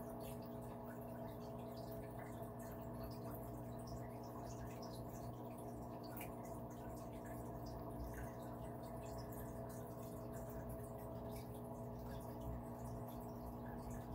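Aquarium pump humming steadily, with water trickling and many small irregular drips and splashes into the tank.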